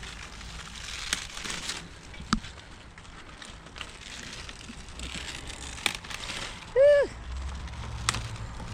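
Kale leaves rustling and snapping as they are picked by hand, with several sharp snaps spread through. A short, loud pitched call that rises and falls comes about seven seconds in.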